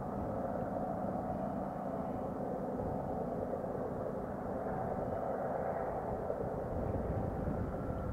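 Diesel locomotives of an approaching BNSF intermodal freight train heard from far off: a steady low engine drone, growing slightly louder near the end.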